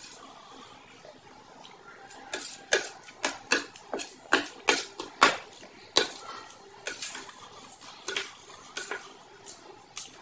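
Close-miked eating at a steel plate: a metal fork clicking and scraping against the plate in a busy run of sharp clicks, thickest in the middle, with the small wet sounds of food being handled.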